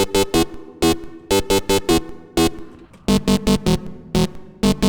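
Distorted, hard-clipped synth patch from Serum 2 playing a pattern of short, choppy stabs with a long reverb, being tried on a new MIDI clip.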